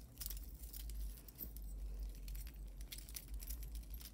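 Jewelry pieces being handled, with small irregular clicks and clinks of chains, beads and metal parts knocking together and light rustling.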